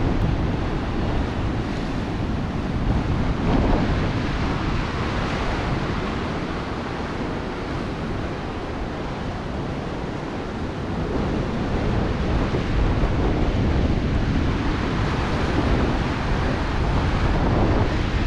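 Rough surf washing and breaking, with wind buffeting the microphone: a continuous rushing noise with no distinct events.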